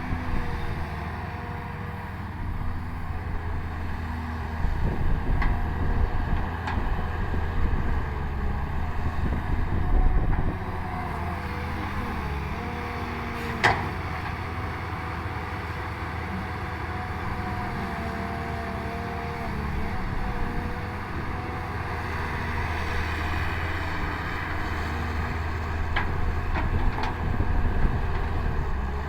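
CAT 320 excavator's diesel engine running steadily under load, with a whine that shifts slowly in pitch. The engine works harder for a few seconds from about five seconds in and again near the end. A single sharp knock comes about halfway through.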